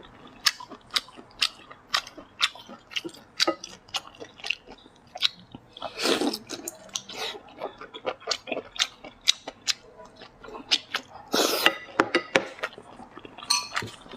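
Close-miked eating sounds: chewing and biting, with sharp moist clicks about twice a second and two longer, louder noisy stretches about six and eleven and a half seconds in.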